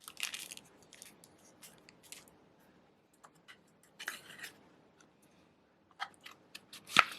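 Handling noise from straight razors and their packaging: a string of small clicks and short scrapes or rustles, with a sharper click near the end.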